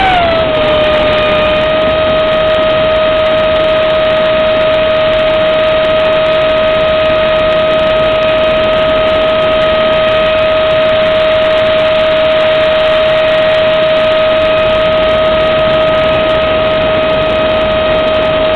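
Electric motor and fan of a foam RC F-18 jet running on a 4S LiPo pack, heard from a camera on board in flight. A loud, steady whine drops a little in pitch right at the start as the throttle is eased back, then holds level over a rush of wind.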